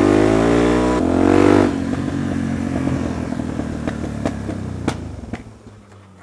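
Loud Suzuki DR-Z400 single-cylinder four-stroke engine revving up over the first couple of seconds, then running lower as the bike slows, with a few sharp clicks near the end before its sound fades right down. This is the bike that keeps stalling.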